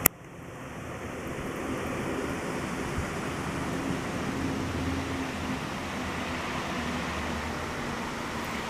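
Steady outdoor background noise, an even hiss with a low rumble beneath it, swelling up over the first couple of seconds after a brief click at the very start.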